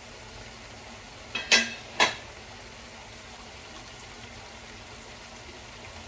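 Cooking in a kitchen: a steady sizzling hiss of food frying, with three sharp ringing clinks of a utensil against cookware about a second and a half to two seconds in, the last two loud.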